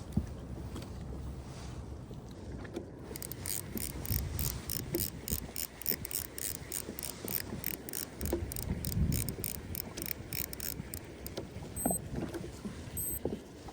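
Fishing reel being wound in, its gears ticking evenly about four times a second for several seconds as the line is brought up. A few short high beeps come near the end.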